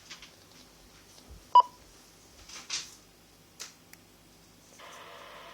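Icom IC-400PRO UHF CB radio receiving repeaters: one short, sharp beep about a second and a half in, a few brief puffs of hiss, and near the end a steady hiss as the next repeater's signal opens the squelch.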